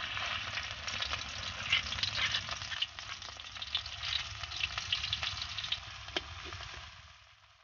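A spoonful of red spice paste hitting hot oil in a metal wok and sizzling with a dense crackle. It is then stirred with a metal spatula, and the sizzle dies away near the end.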